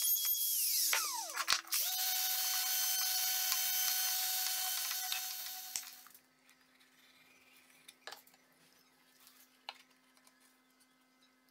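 Compact wood router running at high speed with a high-pitched whine. It winds down in pitch about a second in, then runs again until it cuts off abruptly about 6 s in. The rest is quiet, with a few faint taps and a low hum.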